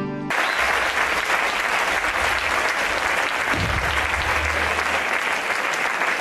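Audience applauding steadily, after a moment of acoustic guitar that cuts off abruptly at the start.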